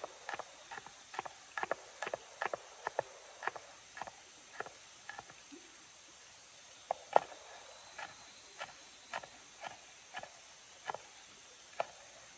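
Chef's knife chopping red chillies on a wooden cutting board: quick knocks of the blade on the board, about three a second at first. After a short pause the knocks come slower and more spaced out, one of them much louder than the rest.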